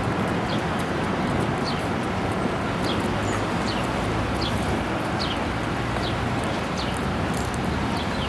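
Steady urban street noise with a small bird calling over it: short, falling chirps repeating about every three-quarters of a second.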